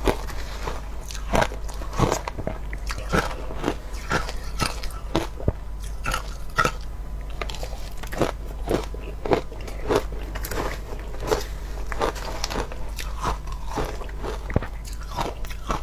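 Close-up biting and chewing of crunchy shaved ice, with irregular sharp crunches and crackles about one to two a second.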